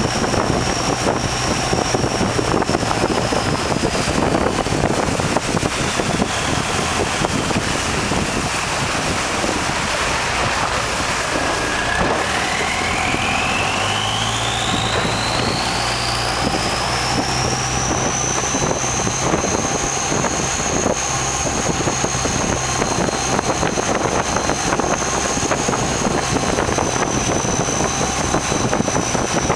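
A river boat's engine running steadily under a rush of wind and water. A high whine slides down in pitch until a little before halfway, then climbs back up and holds high, while the low engine hum steps up.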